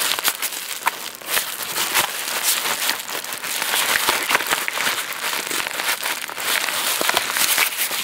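Packaging crinkling and rustling as hands handle and open it, a dense run of small crackles and clicks.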